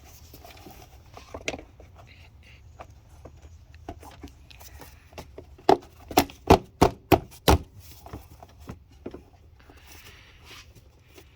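Plastic engine cover being fitted over the engine: light clicks and rattles of handling, then a quick run of six or seven sharp knocks about halfway through as it is pushed down into place.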